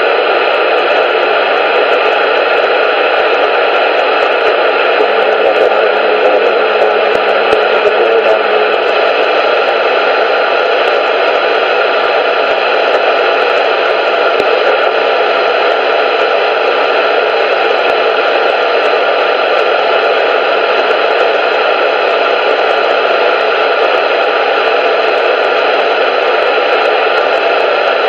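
CB radio static: a loud, steady hiss from a receiver left open on channel 19, with no one transmitting.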